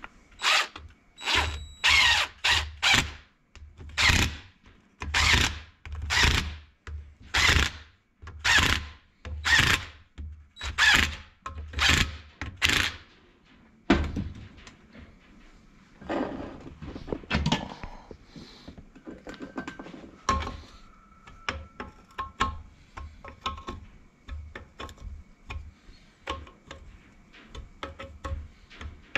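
Metal workshop tools at work on a gearbox: about a dozen loud strokes, roughly one a second, then lighter clinks and clicks of metal tools and parts being handled.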